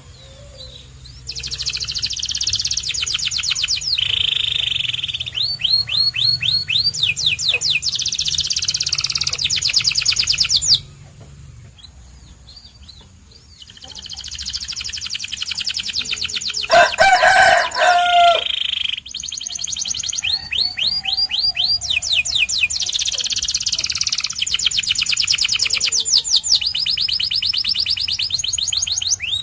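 Domestic canary singing: phrases of rapid high trills and runs of quickly repeated notes. The song pauses for a few seconds near the middle, then resumes with a short, louder, lower-pitched passage before the high trills return.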